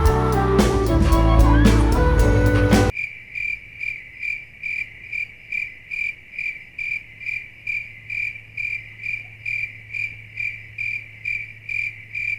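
Background music cutting off sharply about three seconds in. It is followed by a high, clear chirp repeating evenly about twice a second over a faint low hum.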